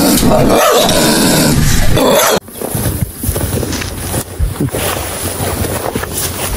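Dog sounds for about two and a half seconds, then a sudden drop to quieter rustling and small crunches of rhinoceroses grazing, cropping grass.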